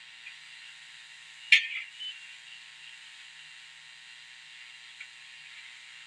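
One sharp clink of steel kitchen utensils about a second and a half in, with a brief ring and a smaller clink just after, over a steady hiss. A couple of faint ticks of utensil handling follow.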